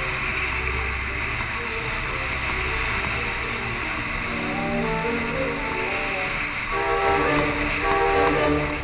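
Background music of held notes that change pitch in steps, growing stronger about halfway through, over a steady low rumble and hiss.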